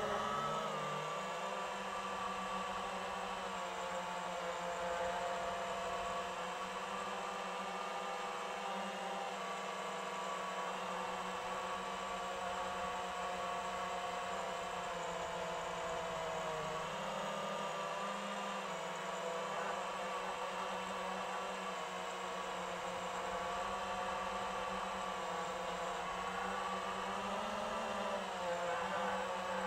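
FPV quadcopter's brushless motors and propellers whining steadily in flight, the pitch bending slightly with throttle changes about midway and again near the end.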